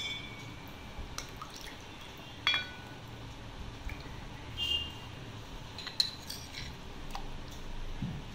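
Rose milk poured from a steel ladle into a tall tumbler, a soft pouring and dripping sound. The ladle clinks sharply a few times, loudest about two and a half seconds in, with a short ring.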